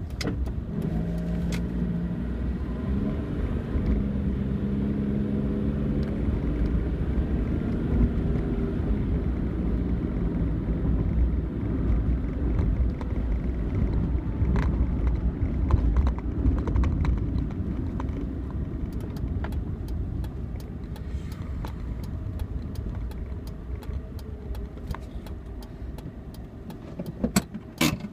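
A car driving along a road: steady low engine and road rumble, with the engine's pitch shifting in the first few seconds. A quick cluster of sharp clicks comes near the end.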